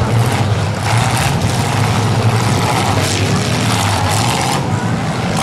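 Demolition derby cars' engines running loudly, a steady low rumble under a rough noisy haze.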